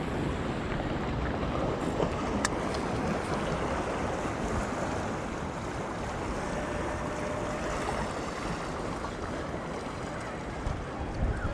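Sea waves washing on the shore and wind buffeting the microphone: a steady rushing noise, with one sharp click about two and a half seconds in.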